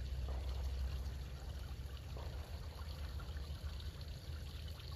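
Water trickling steadily over the stacked rocks of a small backyard garden pond, with a low rumble underneath.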